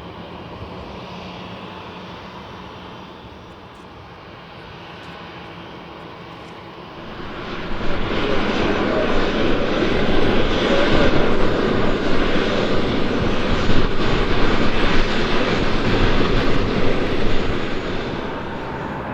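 Airbus A350-941 jet engines (Rolls-Royce Trent XWB turbofans): a low, steady rumble that grows much louder about seven seconds in and holds as a loud, steady roar.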